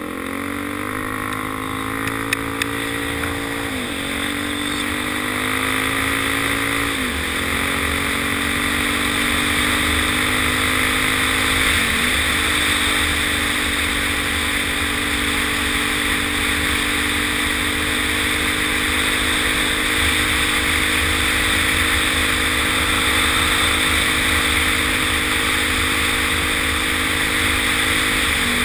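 Suzuki DR-Z400's single-cylinder four-stroke engine running steadily under way, its pitch dipping briefly a few times and then picking back up, over a steady rushing noise.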